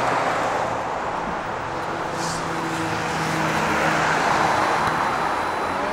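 Road traffic on the street: a steady rush of tyre and engine noise that swells to its loudest about four seconds in, with a low engine hum beneath.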